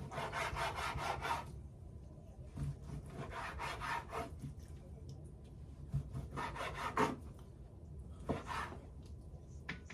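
Knife scraping and slicing through raw chicken breast to trim off the fat, in four rough bursts of about a second each.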